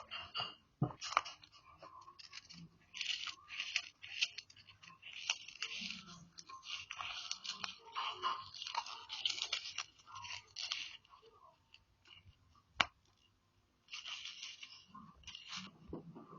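Slime being squeezed and worked by hand, crackling and popping in quick irregular clusters, with a sharp click about thirteen seconds in after a short lull.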